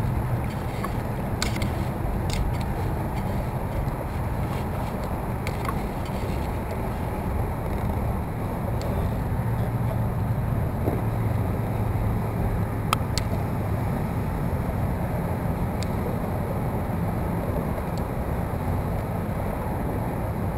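Steady wind buffeting the microphone over water sloshing against a kayak hull, with a few faint sharp clicks scattered through.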